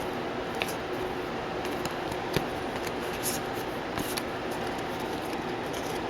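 Hockey trading cards being handled: a few light clicks and brief scraping rustles as cards are slid and set down, over a steady background hiss.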